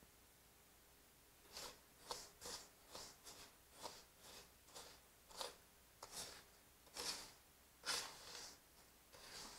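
Wooden spoon stirring and scraping dry, toasting cassava flour (farinha d'Uarini) in a frying pan: short gritty scrapes about two a second, starting about a second and a half in and loudest near the end.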